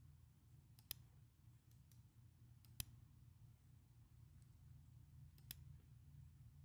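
Several faint, sharp computer mouse clicks, the three clearest about one, three and five and a half seconds in, over a low steady hum.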